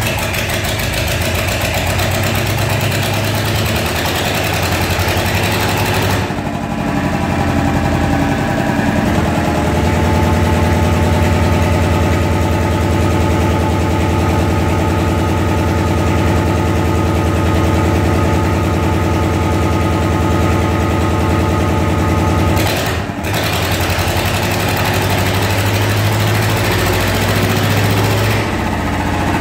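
Lister FR series diesel engine of a standby generator set running, freshly started after years sitting unused. Its running note changes about six seconds in and settles into a steadier run, dips briefly about 23 seconds in, and changes again near the end.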